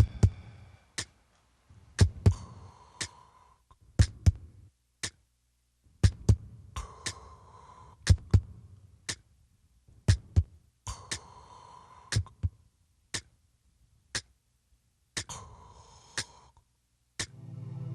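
Sound-collage layers: a heartbeat thumping in pairs, a clock's second hand ticking about once a second, and breaths every few seconds. A steady synthesizer drone comes in near the end.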